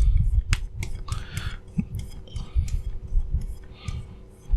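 Steel chisel rubbed back and forth on an oiled carborundum sharpening stone, working off the burr: scraping strokes about once a second, with sharp clicks and low knocks.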